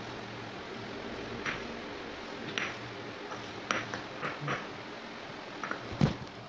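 Stone pestle pounding and crushing anchovies, chillies, garlic and belacan in a stone mortar: short dull knocks roughly once a second, with a heavier, deeper thump near the end.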